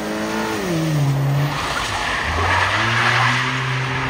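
Chevrolet Cobalt coupe's engine falling in pitch as the throttle comes off, then its tyres skidding on wet pavement with a loud hiss while the engine revs back up and holds steady through the slide.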